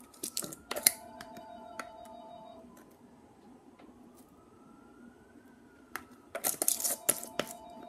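Plastic jar of ground pepper shaken over raw chicken drumsticks: a few sharp shakes in the first second, then a quick burst of rattling shakes about six seconds in, over a faint tone that slowly rises and falls.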